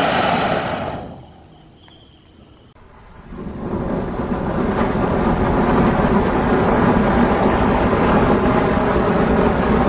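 Ajanta strawberry fountain firework spraying sparks with a loud steady hiss. The first fountain dies away about a second in; after a short lull another is burning and builds back up to a full, steady hiss from about three and a half seconds on.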